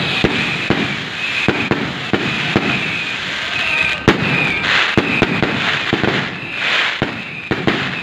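Aerial fireworks display: a rapid, irregular series of bangs from shells bursting overhead, with crackling and a rushing hiss in between.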